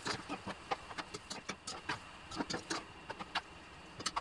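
Spatula stirring chicken livers in sour cream in a nonstick frying pan: many quick, irregular knocks and scrapes against the pan.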